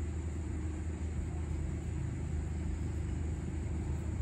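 Steady low background rumble with a faint even hiss.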